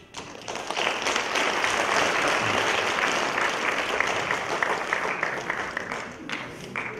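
Audience applauding: many hands clapping together, building up about half a second in and dying away near the end.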